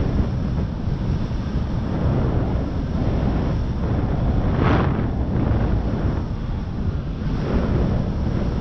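Wind buffeting the microphone of a camera carried while kite foiling, a steady low rumble with a brief louder rush about five seconds in.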